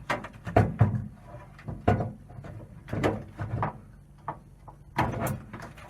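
Clunks and knocks of the combi boiler's metal casing and front panel being handled and opened up, a handful of separate hits with the loudest cluster near the end.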